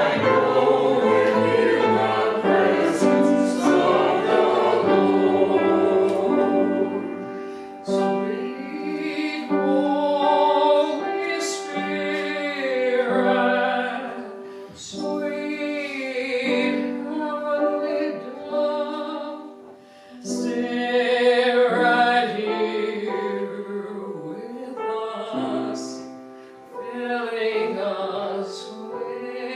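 Group of voices singing a hymn in phrases, over steady held accompanying notes.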